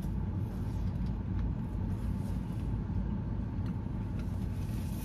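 Steady low rumble of a parked car, heard from inside the cabin, with a few faint small clicks.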